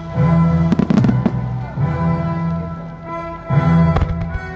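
Aerial firework shells of a musical starmine bursting, a quick cluster of sharp bangs about a second in and another bang near the end, over the show's music.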